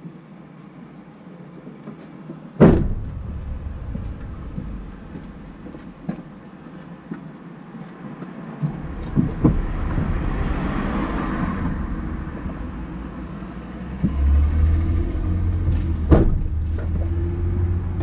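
Turbocharged Mazda MX-5 NC 1.8 four-cylinder heard from the engine bay while driving: engine and intake noise that swells and eases with the throttle, with a hissing whoosh building and fading in the middle. Sharp pops come a few seconds in and again near the end.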